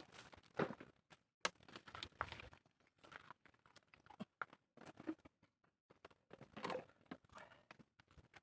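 Faint, irregular crinkles, clicks and rustles of people eating, such as food or packaging being handled.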